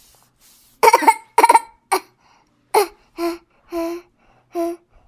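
A child making a run of abrupt, cough-like vocal bursts, then three short pitched hoots about half a second apart. These are odd involuntary-sounding noises during a semi-unresponsive spell that the parent questions may be a seizure.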